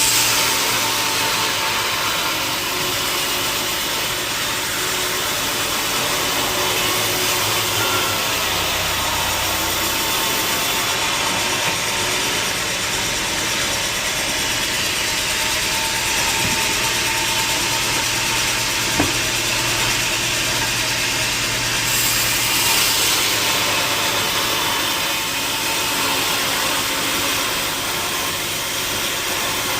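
Sawmill machinery running steadily with a dense mechanical hiss and a constant hum. A single sharp tick comes about two-thirds of the way through.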